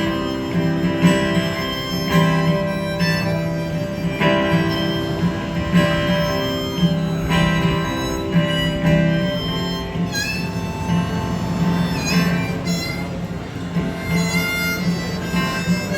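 Country band playing an instrumental break: held lead notes over a steady low accompaniment, turning to short sliding notes about ten seconds in.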